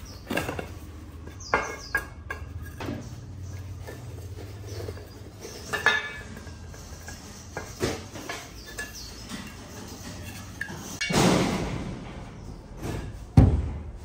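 Scattered metallic clinks and knocks of small parts or tools being handled, about seven in all, the loudest near the end. A longer rushing sound swells and fades a little after eleven seconds.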